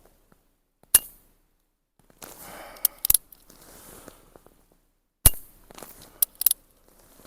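Metal clicks and clacks from a Cimarron .45 Colt single-action revolver being handled: a handful of sharp clicks spaced a second or two apart, the loudest about a second in and about five seconds in, with faint rustling between them.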